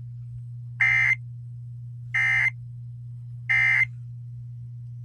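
Emergency Alert System end-of-message code: three short bursts of digital data tones, each about a third of a second long and about a second apart, marking the end of the broadcast alert. A steady low hum runs underneath.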